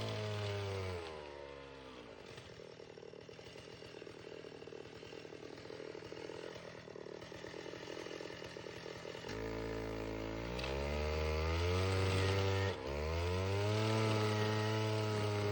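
Alpine Magnum stump grinder's engine running at work on a willow stump. The engine speed drops about a second in and stays lower and quieter for several seconds, then rises again near 9 s and holds high, with a brief dip near 13 s.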